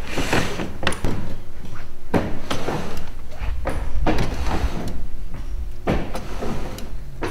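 Irregular clunks, knocks and rattles of a kayak stick-steer rig being worked: the electric outboard motor swings side to side on its mount, its steering cables and linkage clacking.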